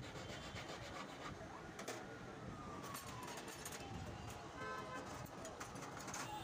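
Hand file rasping on a white gold ring held against a wooden bench pin, faint. Street traffic runs behind it, with a brief vehicle horn about five seconds in.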